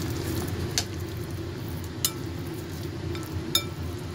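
Metal spoon stirring thick, spice-coated chicken marinade in a glass bowl, clinking sharply against the glass a few times.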